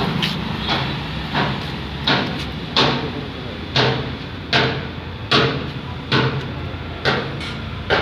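Sharp hammer blows repeated at an even pace, roughly one every three-quarters of a second, over a steady low engine hum.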